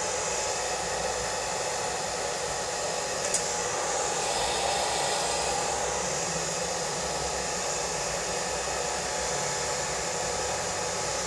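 Philips hand-held hair dryer running steadily, blowing air onto wet hair to shape it. A brief sharp click about three and a half seconds in.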